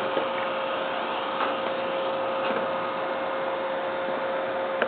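Steady hiss with a constant mid-pitched electrical hum, and a few faint clicks.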